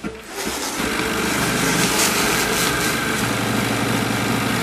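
Chache automatic pattern-sewing machine running a stitching cycle on a strap: the motor hums under a rapid, even needle rhythm. It starts just after the beginning, stays steady and cuts off sharply at the end.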